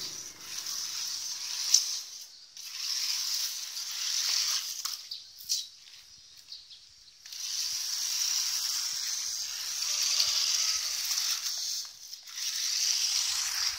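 Toy RC off-road truck's small electric motor and gearbox whirring in stop-start bursts as it drives over tile and concrete, with a couple of sharp knocks.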